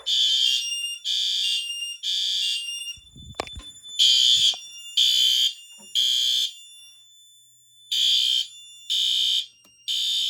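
Fire alarm horn sounding in the temporal-3 evacuation pattern: three half-second blasts, a pause, then three more, repeating. The system is in alarm after a smoke detector was tripped with a test magnet. A brief knock comes about three and a half seconds in.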